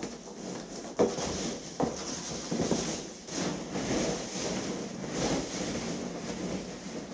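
Rustling of loose polystyrene packing peanuts and packing foam being rummaged through in a cardboard box. Two sharp knocks stand out, about a second in and again just under a second later.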